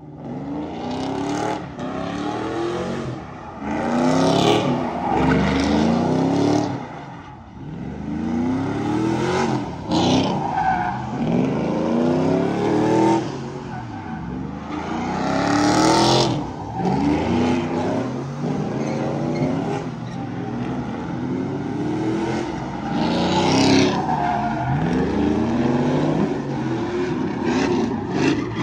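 Pickup truck engines revving hard again and again, each rev rising in pitch, with tires screeching on the asphalt as the trucks spin donuts doing burnouts.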